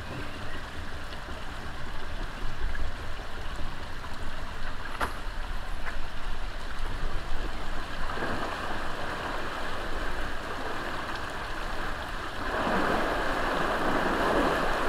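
Water rushing through a canal lock's sluices, swelling about eight seconds in and getting much louder near the end as the sluices open further. A low rumble runs underneath.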